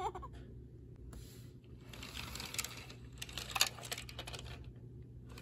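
Light plastic clicks and rattles as a VTech toy fire truck is picked up and handled by hand, strongest through the middle, with a few sharper ticks.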